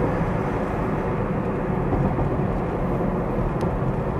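Steady road and engine noise of a car driving at around 30 mph, heard from inside the cabin, with a low rumble and even tyre hiss.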